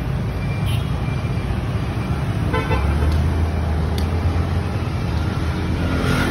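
Street traffic: the engines of passing motorbikes and cars rumbling, growing louder part way through, with a short horn toot about two and a half seconds in.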